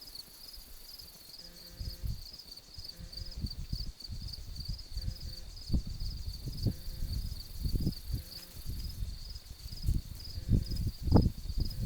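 Insects chirping in a steady, high, pulsing chorus, a few pulses a second. Irregular low rumbles and bumps run beneath it, the loudest near the end.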